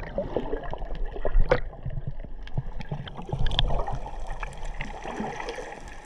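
Muffled underwater sound picked up by a submerged action camera: a steady low rumble of water with scattered crackles and bubble pops from snorkelers nearby, one louder about one and a half seconds in.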